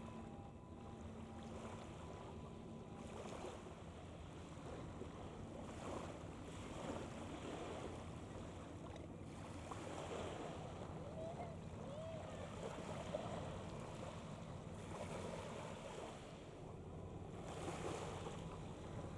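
Harbour ambience: wind and water noise with a steady low engine drone from a departing ship, and a few short high calls near the middle.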